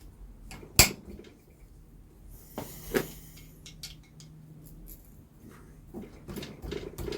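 Metal tools and engine parts clinking and knocking as they are handled and set down during a motorcycle engine strip-down. There is a sharp knock about a second in, another near the middle, and a run of small clinks near the end.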